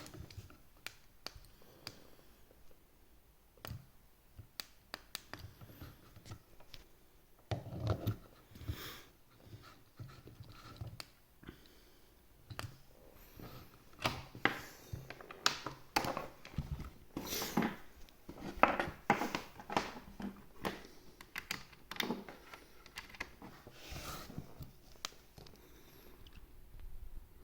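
A malfunctioning M3 humidifier making irregular sharp clicks and short bursts of noise, which come more often and louder in the second half.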